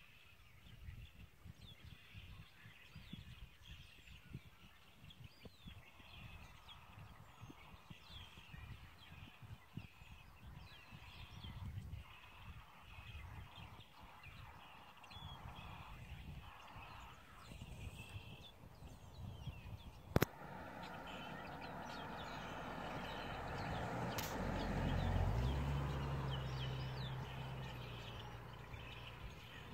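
Outdoor ambience of small birds chirping, with wind rumbling on the microphone. A sharp click comes about two-thirds of the way through, then a vehicle passes, swelling and fading away near the end.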